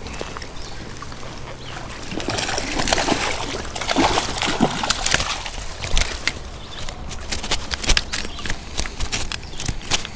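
Splashing and sloshing creek water as a hooked brook trout is fought at the surface and scooped into a landing net, with a run of short, sharp splashes in the second half as the fish thrashes.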